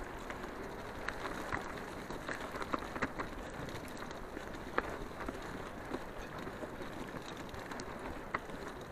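Bicycle rolling fast along a dirt forest trail: steady tyre and wind noise with scattered clicks and rattles.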